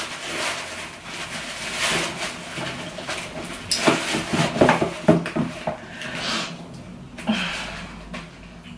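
Crinkling and rustling of wrapping as a small package is unwrapped by hand, with a run of sharp crackles in the middle.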